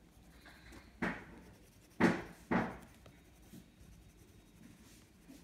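Oil pastel stroked across sketchbook paper: three short strokes, one about a second in and two more in quick succession around two seconds in.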